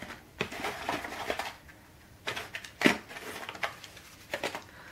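Matchboxes being handled and picked through: scattered light clicks, rustles and small knocks, the sharpest about three seconds in.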